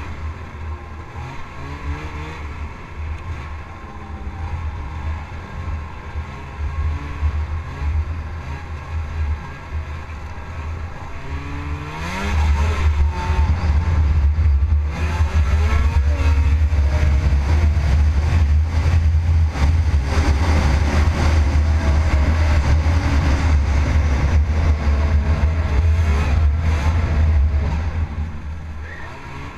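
Ski-Doo snowmobile's Rotax engine running under way across snow. It throttles up about twelve seconds in, holds the higher revs, and eases off near the end.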